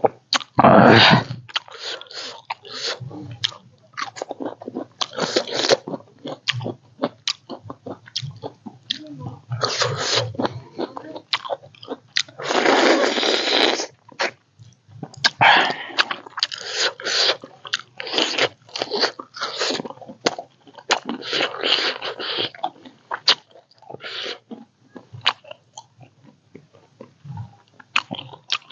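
A person eating close to the microphone: irregular chewing and crunching bites with mouth noises, and one longer noisy sound about thirteen seconds in.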